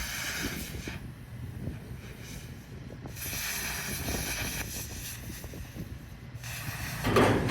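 A power cutting tool cutting through the corrugated steel wall of a shipping container, its hiss starting and stopping in spells of a second or two over a steady low rumble, with a louder burst near the end.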